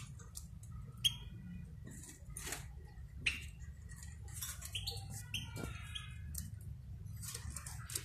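Caged finches giving short, quick chirps, scattered through the stretch, with several sharp clicks among them and a steady low rumble underneath.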